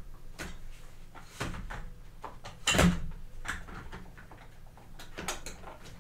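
Genesis Nitro 880 gaming chair parts being worked into place during assembly: a series of knocks and clunks, the loudest nearly three seconds in and a quick cluster near the end.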